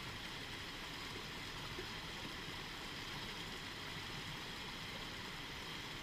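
Rocky stream running over riffles and a small cascade: a steady wash of rushing water.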